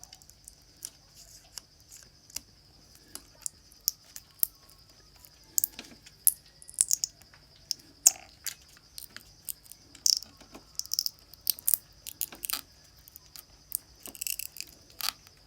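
Irregular small clicks and ticks of tools and fingers handling a smartphone's insides while the battery's adhesive pull tabs are worked, over a steady high insect chirring, like crickets.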